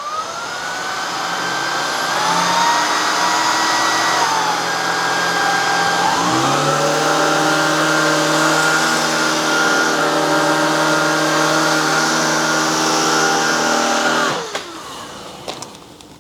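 Vacuum cleaner motor starting up and running with a steady whine; a second, lower tone spins up and joins about six seconds in, and both wind down together after it is switched off near the end. The machine is picking up the grits and crumbs left in a rug.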